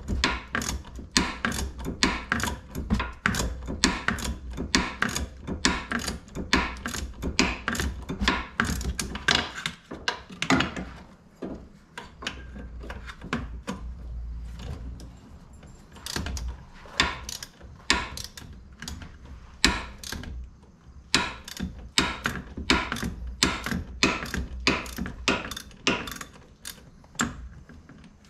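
Hand socket ratchet clicking in quick back-and-forth strokes while turning a bolt on a car's front wheel hub, stopping for a few seconds around the middle.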